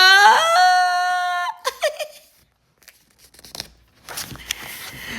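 A voice holding one long, high "aaah" that rises and then stays level, acting out the wind-up to a sneeze, with a short catch of breath after it. A rustling hiss follows near the end.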